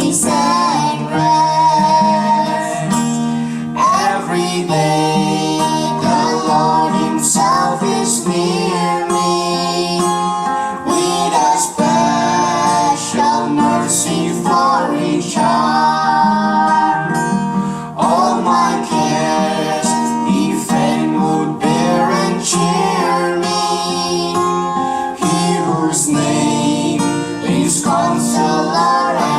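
A gospel song sung by a man and woman as a duet, with strummed acoustic guitar accompaniment.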